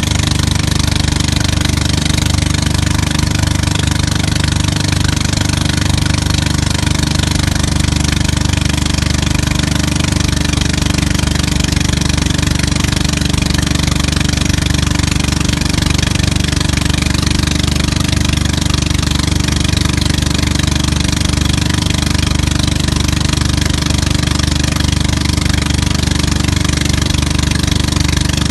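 Tow boat's engine running steadily at speed, close by, over a continuous rush of water.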